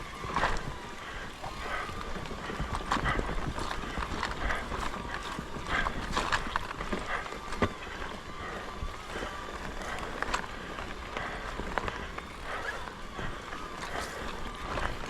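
Mountain bike clattering and knocking as it rides over tree roots on a dirt trail, with irregular sharp knocks over the tyre and drivetrain noise.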